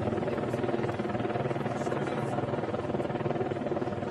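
Helicopter in the air, its rotor beating in a steady, rapid chop.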